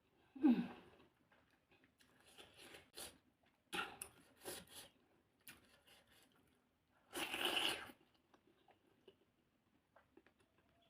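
Close-miked chewing and crunching of Naga-style oily fish: irregular short crunches and clicks, with a longer, louder crunch about seven seconds in.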